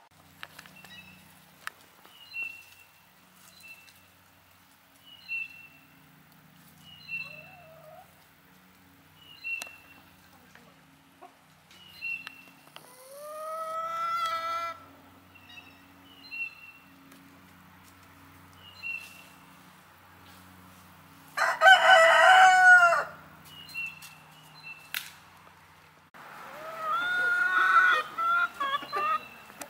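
Roosters crowing three times, the middle crow the loudest, with a short high chirp repeating every second or two between them.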